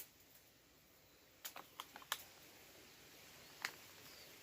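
A few faint, sharp clicks and ticks: a cluster of four or five about one and a half to two seconds in, and a single one near the end.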